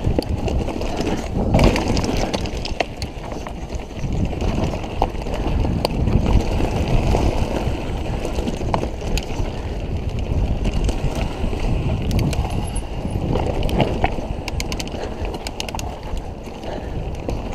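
Mountain bike rolling over a rocky, loose-stone trail: a steady low rumble of tyres and wind on the microphone, with frequent sharp clicks and rattles from the bike jolting over rocks, thickest near the end.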